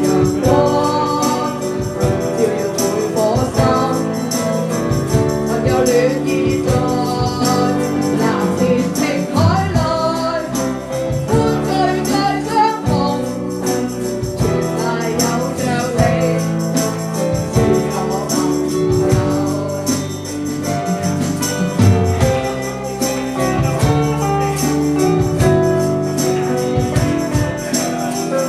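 Music: an instrumental break in a Cantonese pop ballad, a gliding melody line over sustained chords and a light, regular percussion beat.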